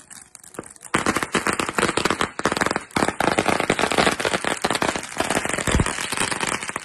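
Ground fountain firework crackling: a dense stream of rapid pops and crackles, sparse at first and much louder from about a second in.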